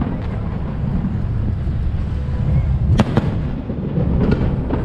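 Aerial firework shells going off: two sharp bangs close together about three seconds in and a couple of lighter cracks near the end, over a steady low rumble.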